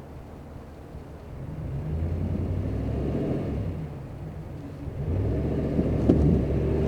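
Car engine rumbling and revving: it rises about a second and a half in, eases off, then revs up again about five seconds in.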